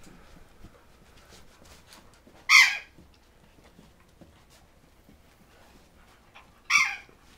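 A dog barks twice, two short sharp barks about four seconds apart, over the faint scuffling of two dogs play-wrestling.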